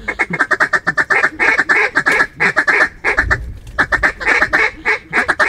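Hunter's mallard duck call blown close by: rapid runs of loud quacks and chatter with short pauses between runs, calling in an incoming duck.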